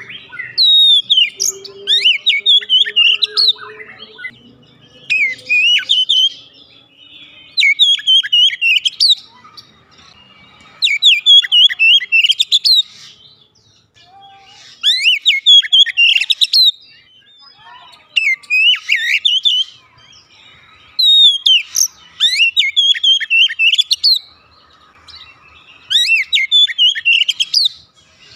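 Male oriental magpie-robin singing loudly in about eight phrases of rapid, varied whistled notes, each one to three seconds long, with short pauses between them.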